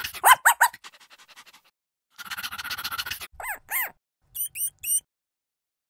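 Small rodent squeaking: short, high squeaks that rise and fall, in groups of two or three, with thinner, higher chirps and a stretch of rapid chattering about two seconds in.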